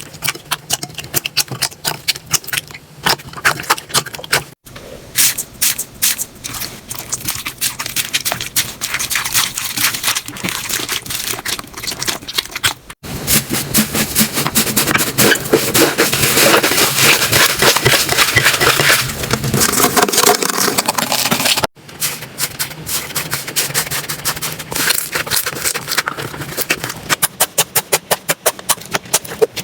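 Slime being squeezed and worked by hand, giving a dense run of wet clicks, pops and crackles. It comes in four short takes, each cut off abruptly, and the busiest, loudest take is just past the middle.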